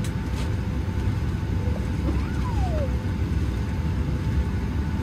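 Steady low rumble of air and machinery inside a parked Boeing 737-700's cabin at the gate, with a faint steady hum over it.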